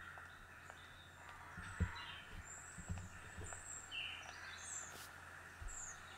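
Faint birds chirping, a scatter of short high calls, heard through the speakers of the music video being played back, with a few soft low thumps.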